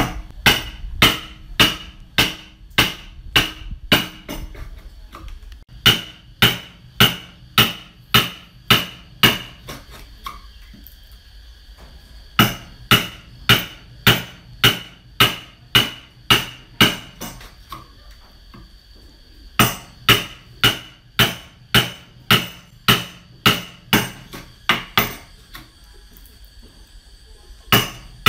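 Hammer striking a chisel, chopping a mortise into a clamped piece of timber. Sharp blows come about two a second in runs of eight to ten, with a pause of about two seconds between runs.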